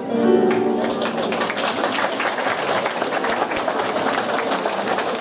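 Audience applause: many hands clapping in a dense, even patter that sets in about a second in as the last notes of the music die away.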